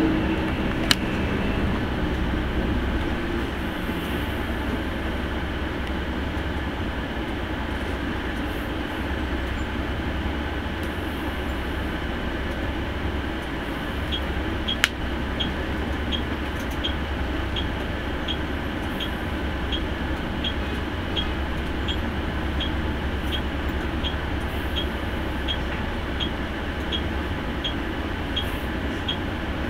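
Steady engine drone and road noise inside a coach bus cabin while driving. From about halfway through, a regular ticking sounds a couple of times a second, typical of the turn signal as the bus pulls out to overtake a truck. There are also two single sharp clicks, one about a second in and one near the middle.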